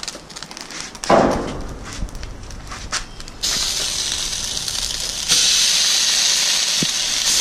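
Sculpin fillets going down on a hot oiled flat-top griddle. The hot oil crackles lightly with a brief rustle about a second in. A steady sizzle starts about halfway through as the first fillet lands, then gets louder as a second one is added.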